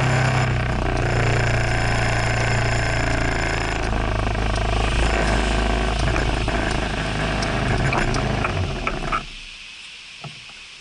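Motor scooter engine running steadily, then cut off about nine seconds in, leaving only faint background noise with a single small click.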